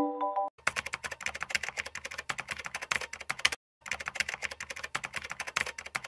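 Keyboard-typing sound effect: rapid, dense key clicks in two runs with a brief break about three and a half seconds in. At the very start the last notes of a mallet-percussion tune ring out.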